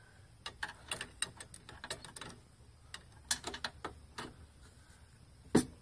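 Irregular metallic clicks and clacks from a floor jack being worked under the suspension to push a new lower control arm up into place, with one loud knock near the end.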